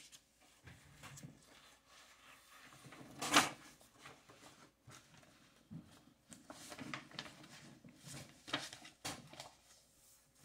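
Faint rustling and handling noises, with one sharp knock about three and a half seconds in.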